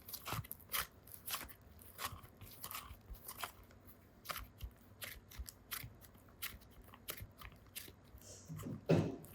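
Irregular small clicks and crackles of hands handling toys or packaging, with a louder thump near the end.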